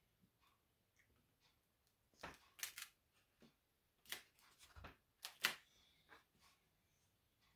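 Faint taps and rubbing as hands press glued wooden strips down onto a wooden tray, with a handful of short, soft knocks between about two and six seconds in.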